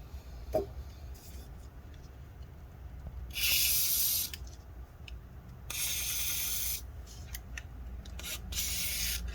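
WD-40 silicone lubricant spray can hissing in three short bursts of about a second each, the last one shorter. It is being sprayed into a laptop cooling fan that squeaks because it sticks, to try to lubricate it.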